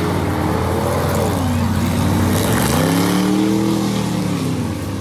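Several car engines racing on a dirt oval as the pack goes by. Their pitch dips, then climbs again as they rev out of the turn, and the sound is loudest in the middle.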